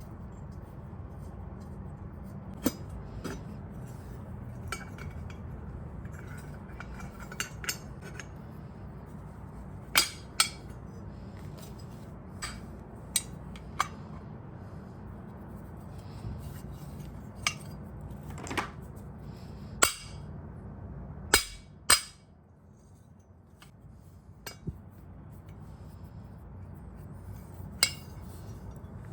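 Scattered sharp metallic clinks and clicks of metal tools and parts being handled, over a steady low hum. The hum cuts out just after a pair of loud clinks about 22 seconds in and builds back a few seconds later.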